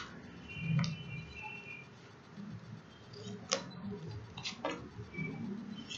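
Tarot cards handled and laid down on a wooden table: a few soft, sharp taps and clicks of the cards against the wood, spaced a second or more apart.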